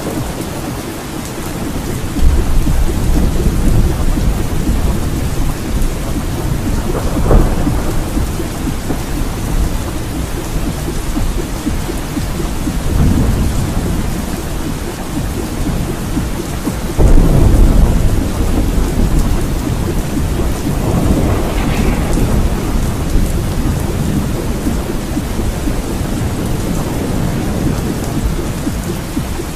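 Steady rain with rolling thunder, several deep rumbles swelling and fading, the loudest about seventeen seconds in.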